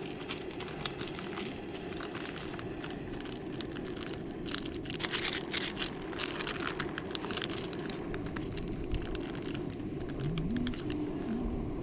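Crinkling and rustling handling noises, busiest in the middle, over a steady low rushing sound.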